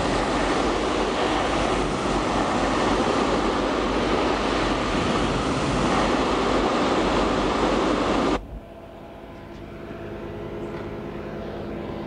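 Hot-water pressure washer at 3000 PSI spraying a golf cart tyre, a loud steady hiss of the water jet hitting rubber and concrete. About eight seconds in the spray cuts off suddenly, leaving a quieter steady hum.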